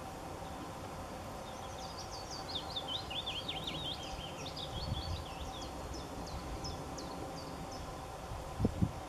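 A small songbird singing a twittering run of quick high notes that thins into sparser chirps, over a steady outdoor background hum. Two brief low thumps near the end.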